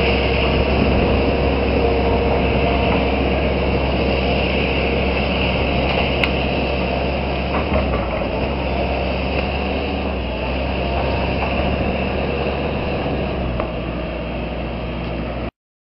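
Hitachi Zaxis 160LC excavator's diesel engine running steadily under work, a dense mechanical din with a few faint knocks. It cuts off abruptly shortly before the end.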